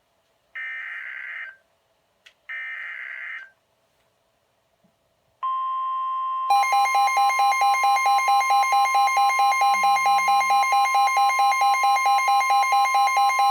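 NOAA Weather Radio's SAME alert header: two short bursts of buzzy digital data. After a short gap comes the steady 1050 Hz warning alarm tone, and about a second later a Midland WR-120EZ weather radio's own alarm joins, beeping rapidly about four times a second.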